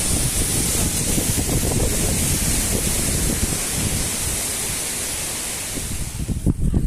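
Wind buffeting the microphone: a steady rushing hiss with irregular low rumbles, dropping away sharply about six seconds in after a few heavier low thumps.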